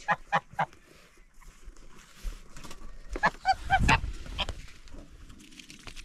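Domestic geese honking: a few quick short calls near the start and a run of calls about three seconds in. A brief low muffled bump at about four seconds.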